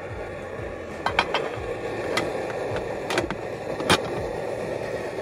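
Sharp metal clicks and clinks of a billy pot's lid and pot gripper being handled, several between one and four seconds in, over a steady rushing noise.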